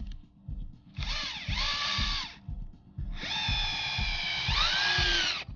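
Cordless drill/driver driving long deck screws at an angle through a 2x4 rot board into a 4x4 fence post: two runs of motor whine, a short one about a second in and a longer one from about three seconds on, the pitch dipping and recovering as the screw bites and seats.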